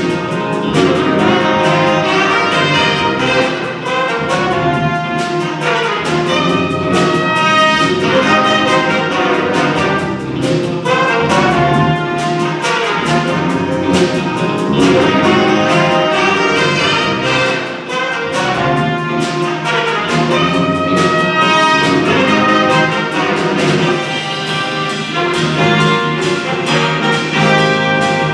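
Big-band jazz with a brass section of trumpets and trombones playing over a steady drum beat.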